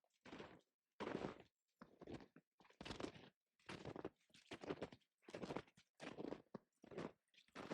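Footsteps crunching on the ground at an easy walking pace, about ten steps, each a short crunch with a pause between.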